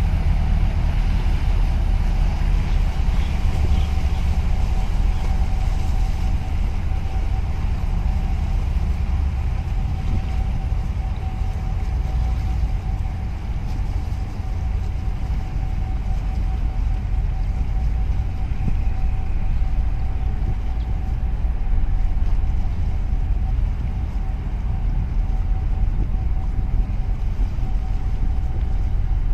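A boat's engine running steadily on the water, a loud low rumble mixed with wind on the microphone, with a thin steady whine on top that fades out shortly before the end.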